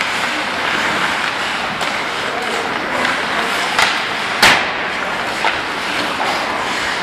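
Ice hockey play: skate blades scraping the ice and steady rink noise, with a sharp crack of a hard impact about four and a half seconds in and lighter knocks just before and after it.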